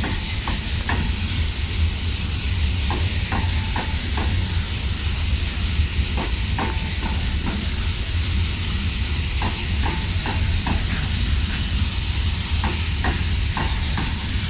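Coal hopper freight train rolling slowly past: a steady low rumble and hiss with scattered light clicks and knocks from the wagons.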